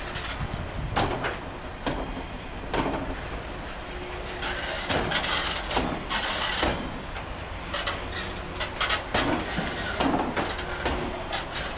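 Freight train of loaded flatcars rolling slowly past, with a low rumble and irregular metallic knocks and clanks from the wheels and couplings. A thin high squeal runs from about three to six seconds in.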